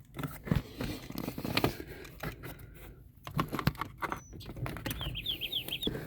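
Plastic clicks, knocks and scraping as a car's cabin air filter is unclipped and slid out of its housing. About five seconds in, a quick run of high chirps.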